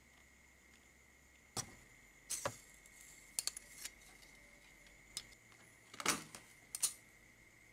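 Scattered light clicks and taps of insulated speaker wire and bare wire being handled on a plastic cutting mat, irregular, with the loudest ones a little after the middle.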